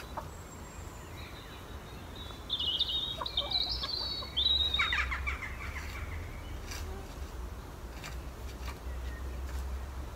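A bird chirping and trilling in quick high notes for about three seconds, a few seconds in, over faint scraping clicks of a garden fork dragging straw litter across the floor of a chicken run.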